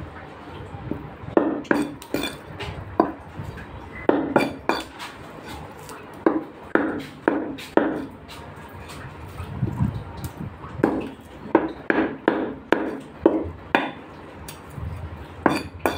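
Meat cleaver chopping chicken: irregular heavy chops in clusters of several, with short pauses between them.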